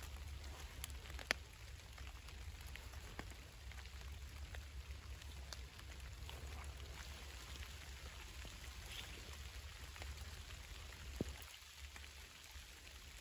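Light raindrops ticking irregularly on forest leaves over a faint steady hiss, with two sharper clicks, one about a second in and one near the end.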